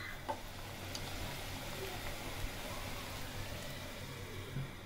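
Duck curry simmering in a pot: a steady bubbling hiss, with a couple of sharp spoon clinks against the pot in the first second.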